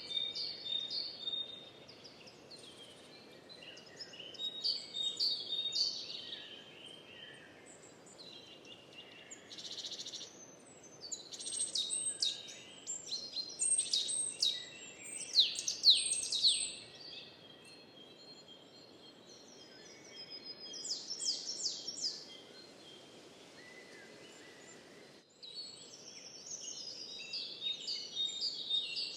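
Songbirds singing and chirping in short repeated phrases, including a run of quick falling notes in the middle, over a faint steady outdoor hiss.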